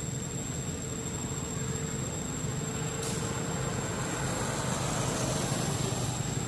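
Road traffic noise: a vehicle's engine and tyres running on the road, growing louder in the second half as it passes.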